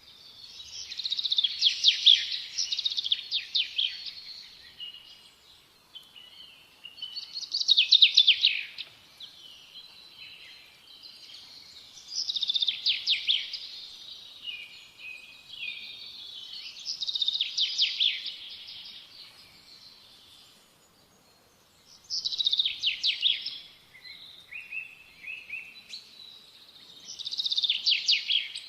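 Small songbird singing: six song phrases of rapid, high trilled notes, one about every five seconds, with quieter twittering between them.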